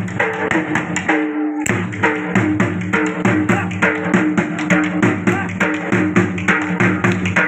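Dhol drum played in a fast, steady jhumar rhythm, about four strokes a second, with a held, wavering melody line sounding over it.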